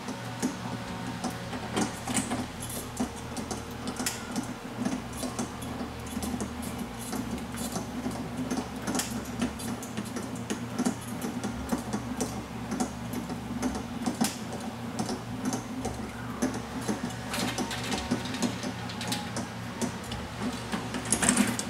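Rolling shutter being lowered with a hand-crank rod: a continuous fast clicking and rattling from the crank mechanism and the curtain slats as the curtain unrolls down the guide rails. A louder clatter comes near the end.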